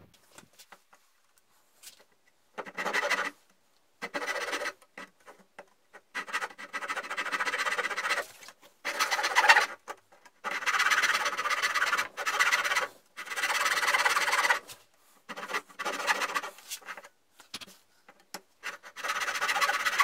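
Handsaw cutting cross kerfs into a walnut handle blank: runs of rasping saw strokes that stop and start again several times.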